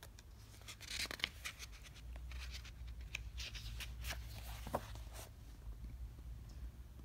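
Soft paper rustling and light clicks as the picture book is handled, bunched between about one and five seconds in, over a faint steady low room hum.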